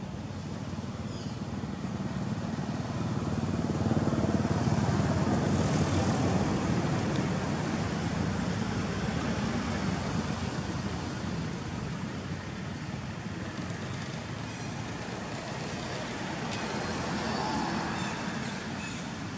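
Rumble of passing road traffic, a vehicle swelling past about four seconds in and a fainter one near the end.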